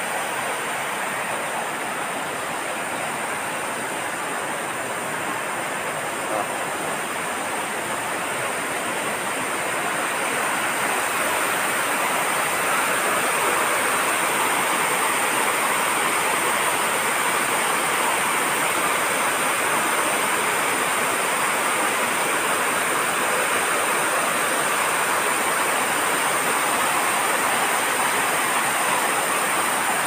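Waterfall pouring over rocks: a steady rush of water that grows louder about ten seconds in.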